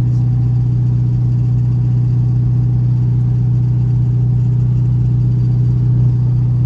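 C6 Corvette's V8 with headers running at a steady drone, holding an even pitch as the car cruises at constant speed.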